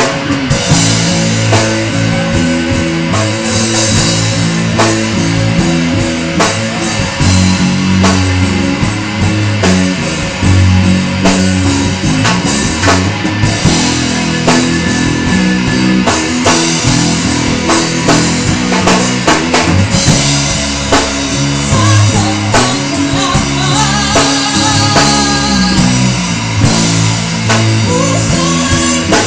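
Rock song played by a full band: drum kit and guitars going steadily at full volume.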